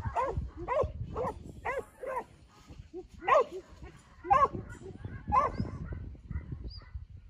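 Black-and-tan working yard dog giving its mob bark while pushing sheep: a string of short, single barks, quick at first, then spaced out, with the two loudest about three and four seconds in.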